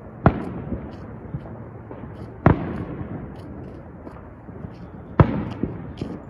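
Fireworks going off: three loud booms, the first just after the start and the others about two and a half seconds apart, each echoing away. Smaller scattered pops and crackles sound between them.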